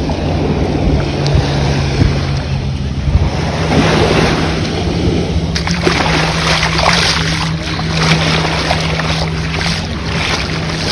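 Shallow sea waves washing in over sand and draining back, surging louder about halfway through, with a steady low hum underneath.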